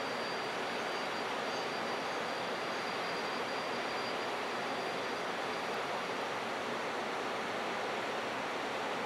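Steady rushing noise of a freight train of tall cars rolling slowly past at close range, with no clanks or wheel beats. A faint, thin high whine runs under it and fades out about two-thirds of the way through.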